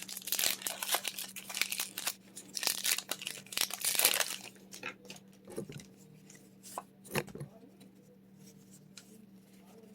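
Crinkly foil wrapper of a Pokémon trading card booster pack being torn open and crumpled, a dense crackling for about four seconds, then a few scattered soft clicks of handling before it goes quiet.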